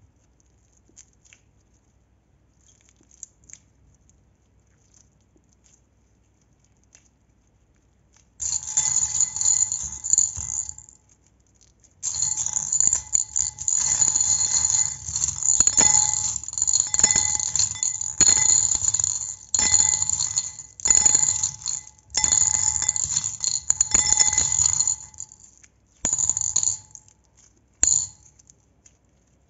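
Slime being mixed by hand in a bowl: after a quiet start with a few faint ticks, a run of rasping, scraping strokes about one to two seconds long begins about eight seconds in, with a faint ringing tone running through them.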